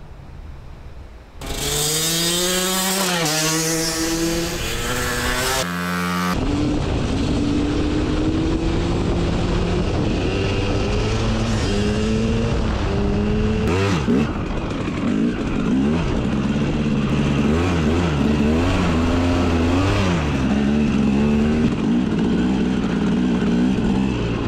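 Dirt bike engine running under way. It comes in loud about a second and a half in, and its pitch climbs and drops again and again as the bike accelerates and shifts through the gears.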